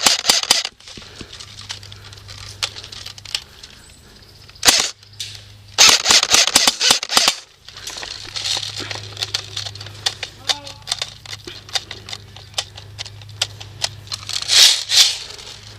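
Airsoft guns firing during a game: scattered single shots with several rapid bursts, the longest about six seconds in and another near the end.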